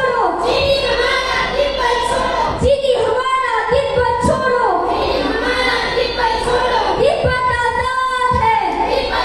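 A girl singing a slow song into a microphone, amplified through a PA, with long held notes.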